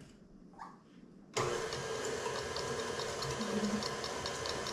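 Tilt-head stand mixer switched on about a second in and running steadily, mixing the muffin batter, with a quick regular ticking over the motor's hum.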